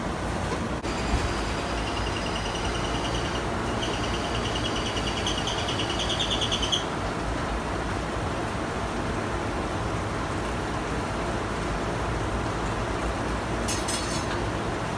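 Steady background hiss and low hum of a fish shop's counter area. A high, rapidly pulsing chirp sounds from about a second in until almost seven seconds in, and a short, crisp rustle comes near the end.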